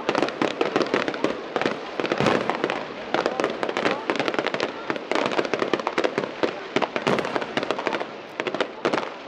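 Fireworks going off in a rapid, unbroken stream of bangs and crackles, several a second.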